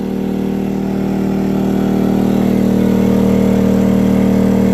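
Predator 2000 inverter generator's small single-cylinder four-stroke engine running steadily at a constant speed under near-full load, powering a heater of almost 1500 watts. It gets a little louder over the first couple of seconds, then holds level.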